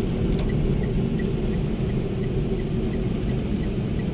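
Steady low rumble of a car driving on a rain-wet road, heard from inside the cabin, with a faint regular ticking about three times a second.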